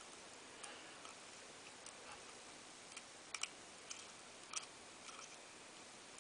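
Faint, scattered metallic clicks and ticks of an Allen key working the small screws of a LunaTik watch strap. The loudest is a quick double click about three and a half seconds in, with another click about a second later.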